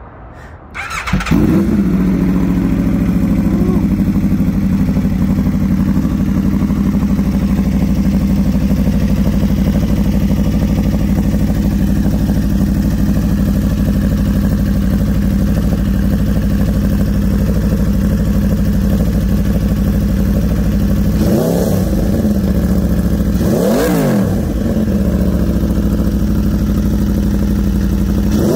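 2021 Aprilia RSV4's V4 engine through a QD slip-on exhaust, starting about a second in and settling into a steady idle. Over the last seven seconds the throttle is blipped a few times, each blip a quick rise and fall in pitch.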